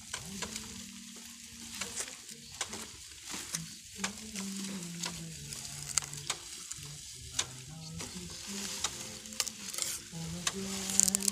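Machetes chopping into stacked sugarcane stalks: irregular sharp knocks, about one a second, over the crackling rustle of dry cane leaves and trash. A low hum that shifts pitch now and then runs underneath.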